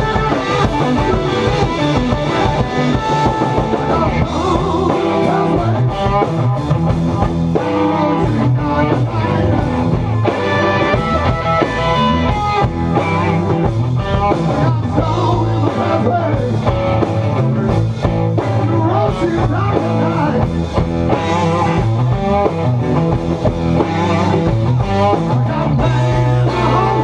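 Live blues-rock band playing: two electric guitars, electric bass and drum kit, loud and without a break.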